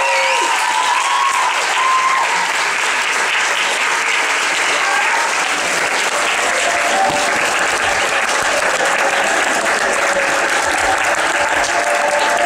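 Concert audience applauding steadily, with a few voices calling out in the first couple of seconds. Short steady musical tones begin to come through the clapping in the second half.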